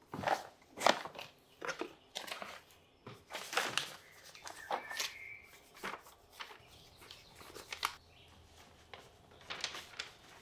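Crayon scribbling on paper in quick, irregular strokes, with the paper rustling as it is handled.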